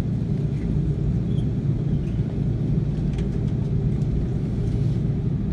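Steady low rumble inside a jet airliner's cabin as it taxis before takeoff, the engines and rolling heard through the fuselage.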